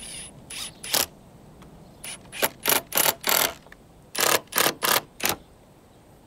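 Cordless drill driving screws through a steel gate hinge into timber, in about ten short bursts of the motor, bunched into two quick runs.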